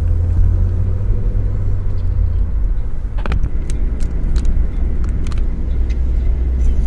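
Car being driven, heard from inside the cabin: a steady low engine and road rumble, with a short run of sharp clicks or rattles near the middle.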